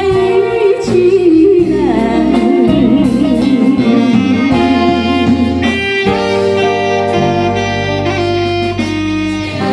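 A woman singing holds a long final note with wide vibrato over backing music. About six seconds in, the backing settles into steady held closing chords.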